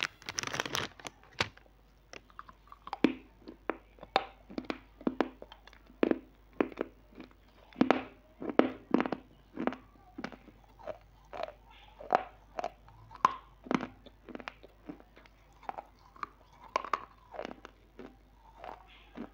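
Crunchy snack being chewed close to a clip-on microphone: sharp, irregular crunches about one or two a second. A brief rustle of the snack packet being handled in the first second.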